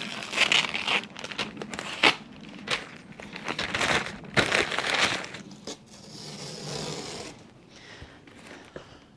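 Masking paper being pulled off a car's window frame and scrunched up by hand: bursts of paper rustling and crinkling, with sharp snaps about two and four and a half seconds in, fading near the end.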